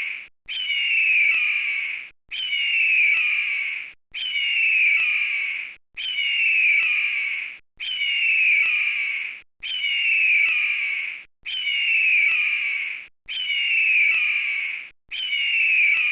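Eagle scream: a hoarse cry that falls in pitch, about a second and a half long, repeated identically about every two seconds, nine times over, like a loop.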